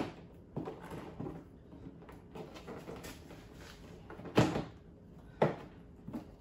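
Plastic clips on a Club Car Tempo golf cart's front cowl snapping into place as the panel is pressed on by hand: a few light knocks, then two sharp snaps about a second apart in the second half.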